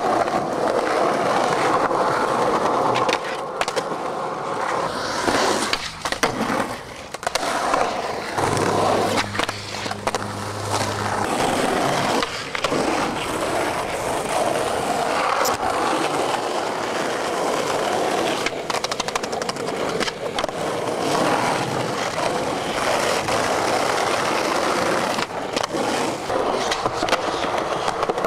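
Skateboard wheels rolling over concrete and asphalt, with tail pops, board clacks and landings. The sound changes abruptly several times, as separate takes are cut together.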